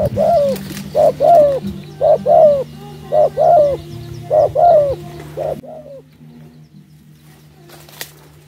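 Spotted dove cooing: a run of short coos, mostly in pairs about a second apart, stopping about five and a half seconds in. A single sharp click near the end.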